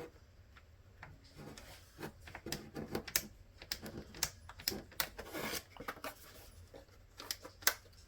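Small plastic map light button and switch parts clicking and tapping as they are handled and pushed together, in irregular light clicks with a few sharper ones. The button will not stay seated on the switch.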